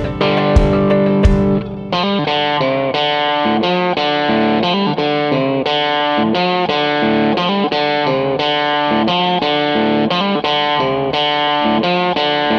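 Background music: a melodic line played on guitar with an effects-processed electric tone, picked notes changing several times a second.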